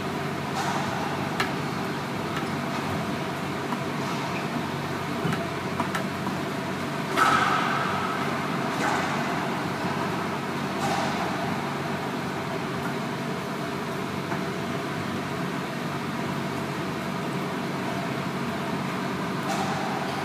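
Racquetball being struck during a rally on an enclosed court: a handful of sharp cracks of ball off racquet and walls, spread out, each with a short echo. The loudest comes about seven seconds in. A steady background hum runs under them.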